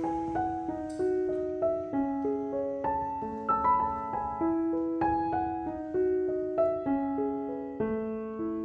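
Background piano music: a gentle melody of single struck notes over longer-held lower notes.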